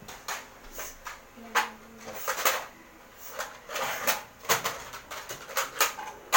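Foam-dart toy blasters being cocked and fired in a small room: an irregular string of sharp plastic clacks and snaps, with voices in between.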